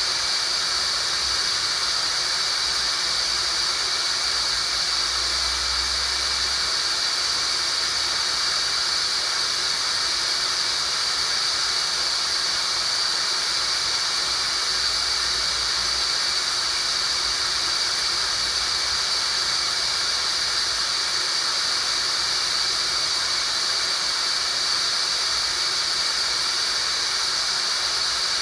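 Tinnitus relief sound-therapy track: a steady, unchanging high-pitched hiss, strongest in one narrow high band.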